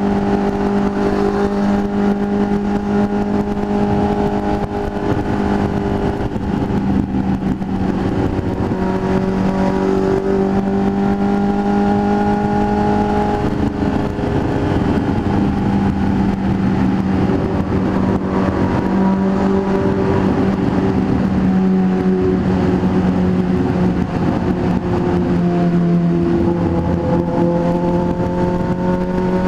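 Motorcycle engine running at highway speed, heard from the rider's position over steady wind and road rush. Its pitch drifts gently with the throttle and climbs near the end as the bike speeds up.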